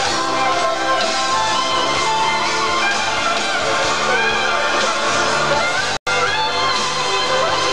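Live rock band playing, with electric guitar over bass and drums. The sound drops out completely for an instant about six seconds in.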